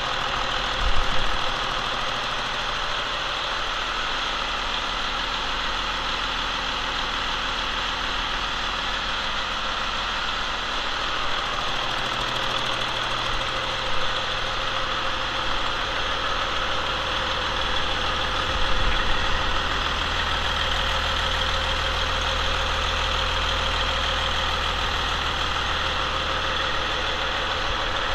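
Cummins ISM 10.8-litre inline-six diesel engine idling steadily out of the truck, its low rumble growing stronger about eleven seconds in, with a few brief louder bumps.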